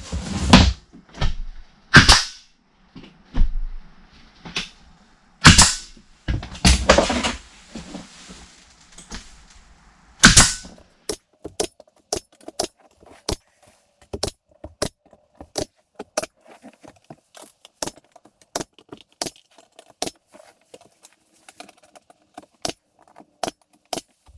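Nail gun firing nails to fasten a sheet of plywood to the wall: a few loud, irregular bangs in the first ten seconds, then a steady run of short sharp shots about two a second.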